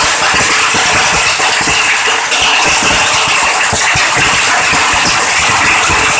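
Heavy rain with hailstones, a loud steady downpour with many irregular small knocks as stones strike hard surfaces.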